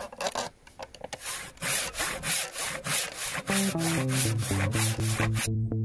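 Hand saw cutting through a magnolia log in quick back-and-forth strokes, about four a second. Bass-guitar music comes in a little past halfway, and the sawing stops shortly before the end.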